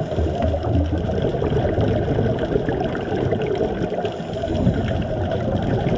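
Muffled underwater sound picked up through a camera's waterproof housing: a steady low rushing and gurgling rumble with a faint hum underneath.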